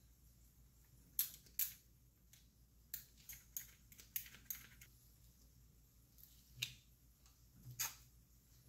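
Faint, irregular clicks and light crinkles, about ten in all, from a metal marinade injector being worked into a raw brisket on a foil-lined pan.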